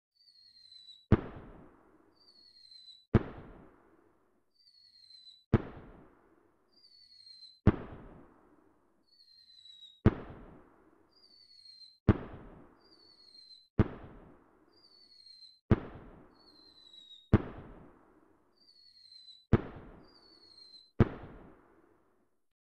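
Fireworks going off one after another, about every two seconds: each is a short falling whistle followed by a sharp bang that trails off, eleven in all.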